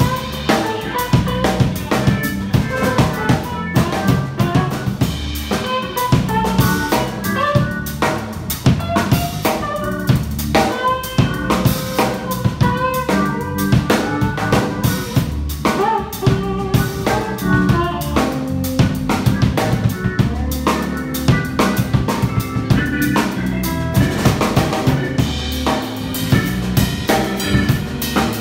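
A live band playing an instrumental: a drum kit keeps a busy beat on snare and bass drum, under an electric bass line and a pedal steel guitar melody.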